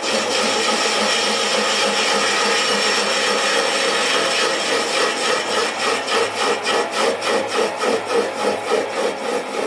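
Sieg SC4 mini lathe running while the tool faces the end of a spinning cast iron bar: a steady scraping cutting noise over the motor's low hum. In the second half it pulses about two or three times a second.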